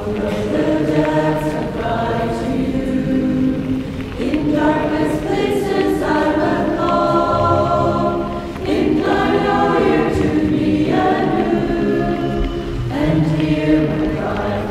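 Background music: a choir singing slow phrases of long held notes in harmony.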